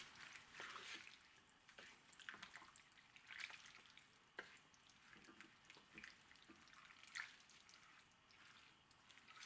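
Faint, irregular soft pops and gurgles of chopped vegetables simmering in tomato juice in a pot, with occasional scrapes of a wooden spoon stirring.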